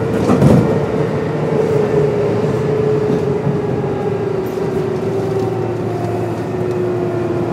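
Kintetsu 8600 series electric train running on field phase control: a steady motor whine falls slowly in pitch as the train slows, over constant wheel-and-track rumble. One loud knock comes about half a second in.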